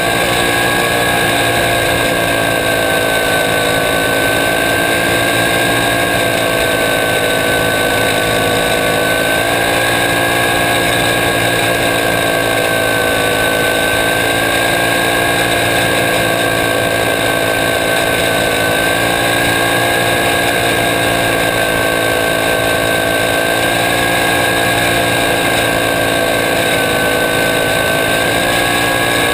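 Caged racing kart's engine running hard at speed, heard from on board, its pitch drifting gently up and down as the kart goes through the corners.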